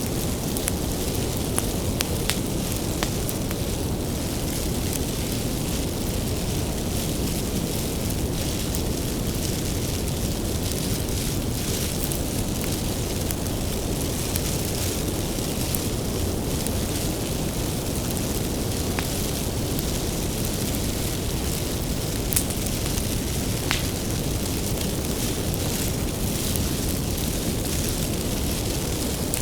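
A wood bonfire burning: a steady low rush of flame with scattered sharp crackles and pops from the firewood, one slightly louder pop about three-quarters of the way through.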